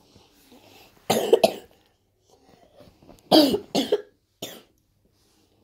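A child coughing five times: two coughs about a second in, two more a couple of seconds later and a last single one, from a sore throat.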